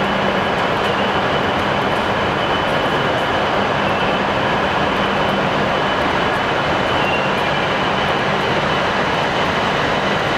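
Steady loud mechanical rushing noise with a low hum and a faint high whine, from a train at the station.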